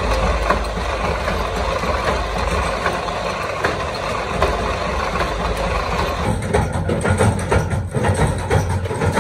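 Screw-shell forming machine running: a steady mechanical clatter of many rapid ticks over a low drone. About six seconds in, the sound shifts to a heavier rumble with louder, sharper ticks.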